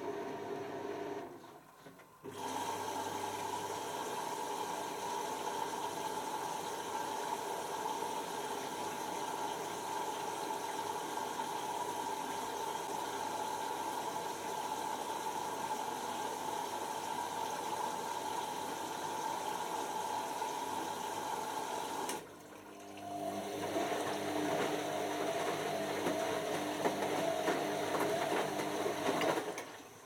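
Beko WM5100S washing machine tumbling a wet wash load: the drum motor runs with a steady whine, stops briefly twice (near the start and about three-quarters through), and starts again at a different pitch, the usual stop-and-turn rhythm of the wash action.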